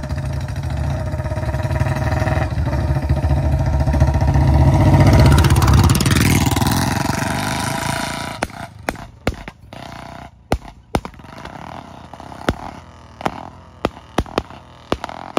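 Two Royal Enfield Bullet motorcycles with bend pipes and short-bottle silencers ride past, their engines growing louder to a peak about five seconds in and then fading. From about eight seconds in comes a string of sharp, irregular exhaust pops: backfires on the overrun from the short-bottle silencers.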